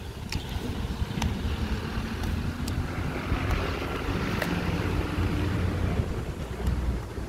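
Wind rumbling on the microphone, with a few sharp clicks as a dog gnaws a stick held in its mouth.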